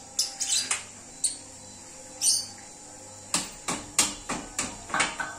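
A series of sharp metallic clinks and knocks from hands and tools working on the steel frame of a drilling rig being dismantled. Near the end comes a quick run of about six of them, roughly three a second, some with a brief ring.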